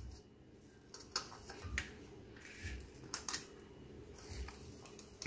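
Stainless-steel spring-release cookie scoop working dough in a stainless mixing bowl: scattered light metal clicks and scrapes, with a few soft low thumps.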